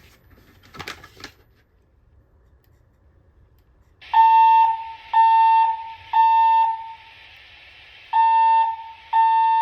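Wheelock E70 fire alarm speaker strobe sounding a temporal-3 evacuation tone: three beeps in a row, a pause, then three more, one steady pitch with overtones. A short click comes about a second in, before the tone starts.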